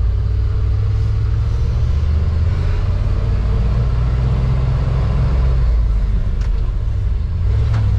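Chevrolet C30 wrecker's engine running under load as the truck pulls away in first gear, heard from inside the cab: a steady low rumble.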